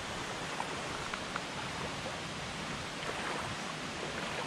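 Steady rush of a shallow stream flowing over rocks, with a few brief ticks now and then.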